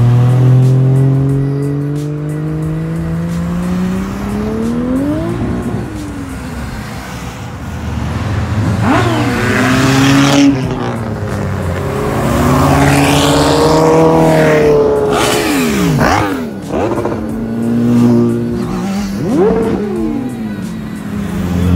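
Car engines revving hard. The pitch climbs steadily over the first five seconds, then goes through several rev-ups and drops, with more than one engine note overlapping.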